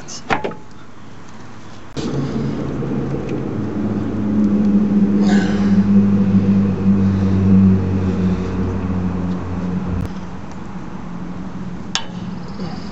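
A motor running with a steady hum of several even tones. It starts abruptly about two seconds in, swells in the middle and eases after about ten seconds.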